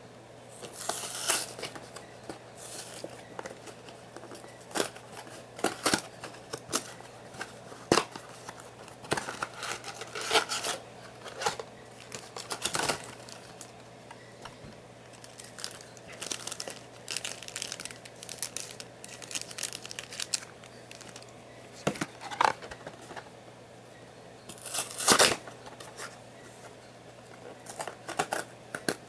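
Packaging of Yu-Gi-Oh booster boxes being torn open and crinkled by hand, in scattered bursts with small clicks and rustles and several louder tears. A faint steady low hum from a small space heater runs underneath.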